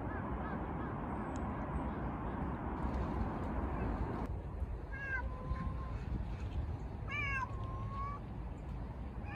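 A steady rushing noise for the first four seconds, then a cat meowing twice, about five and seven seconds in. Each meow falls in pitch and then holds a long level note.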